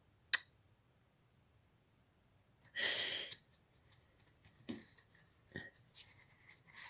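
A sharp click just after the start, a short breath about three seconds in, then soft knocks and taps as paperback books are handled and lifted off a stack.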